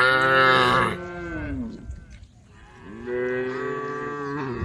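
Cows mooing: one loud long moo that drops in pitch as it ends, then a second long moo starting a little before three seconds in.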